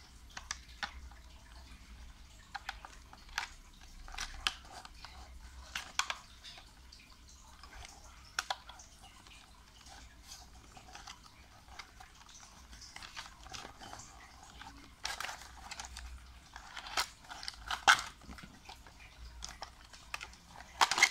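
Hands working a toy train out of its cardboard packaging, untwisting the wire twist-ties that hold it and shifting the card tray: irregular crinkling, rustling and small clicks, with a few louder crackles about three quarters through.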